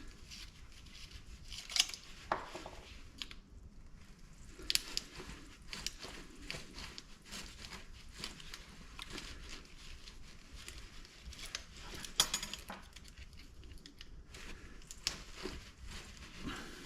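Scattered clinks, clicks and rattles of small metal parts and hand tools as a large lamp fixture is taken apart by hand, with a few sharper knocks about two seconds in and again about twelve seconds in.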